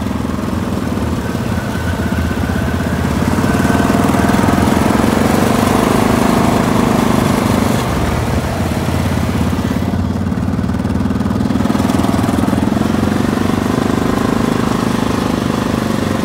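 Off-road vehicle engine running steadily while driving, under continuous road and wind noise. It grows slightly louder through the middle and eases briefly about eight seconds in.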